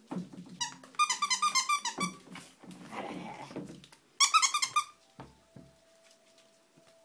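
Ferrets dooking during a play fight: two quick runs of high, chirping clucks, about eight a second, the first about half a second in and the second about four seconds in. Between the runs come thumps and scuffling as the two wrestle on the tile floor.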